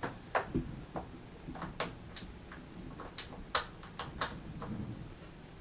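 An HDMI cable's plug handled against a soundbar's rear panel and pushed into its HDMI port, making a series of small, irregular plastic clicks and taps.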